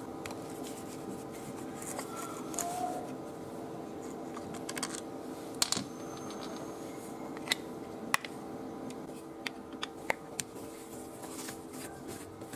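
Screwdriver scraping and prying against the metal frame and electromagnet coil inside an old vibrator-type hair clipper's plastic casing, giving scattered sharp clicks and scratching as the coil is worked loose.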